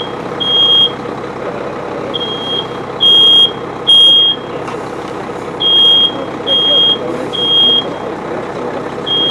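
Smoke alarm going off, sounding repeating groups of three high beeps with a pause between each group: the evacuation pattern that signals it has detected smoke from the fire in the room.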